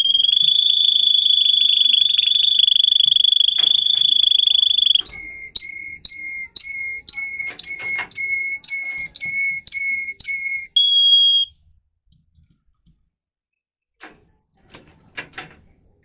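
Canary singing: a long, steady, high rolling trill, which about five seconds in gives way to a string of repeated two-pitch notes, about two a second, ending on a short high note. After a pause come a few clicks and short high chirps near the end.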